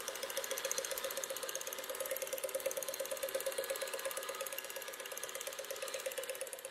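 Electric stand mixer with twin beaters running steadily, whipping cream cheese and heavy cream in a stainless steel bowl: a motor hum with a fast, even mechanical ticking.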